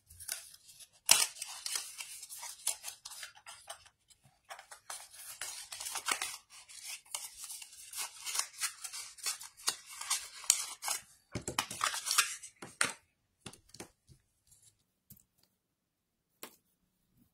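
Washi tape being peeled off the roll and handled: a dry, crackling rustle full of small clicks that stops about 13 seconds in, followed by a few faint taps.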